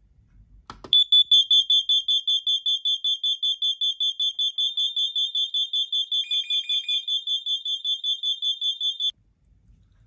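Smart Detect UK wireless interlinked smoke alarm sounding its test alarm after its test button is pressed: a click, then a shrill tone pulsing rapidly, about six pulses a second, for about eight seconds before cutting off suddenly. A second, lower tone joins briefly about six seconds in.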